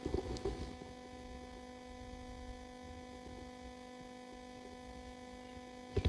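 Faint, steady electrical hum: several even tones held unchanged, with a few light ticks in the first second.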